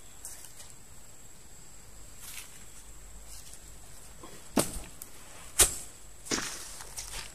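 Footsteps crunching and snapping through dry bamboo stems and leaf litter close by: about four sharp cracks in the second half, under a second apart.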